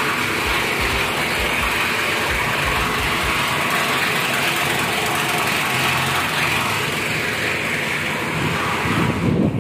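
A motor-vehicle engine running steadily close by, over a constant hiss. For the first few seconds it carries a low, even pulsing.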